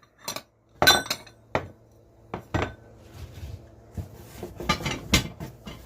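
Metal tableware pieces being set down one at a time on a surface, clinking: a few separate clinks, some with a short ring, then a quicker cluster of clinks in the second half.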